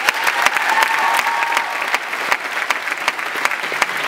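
An audience applauding.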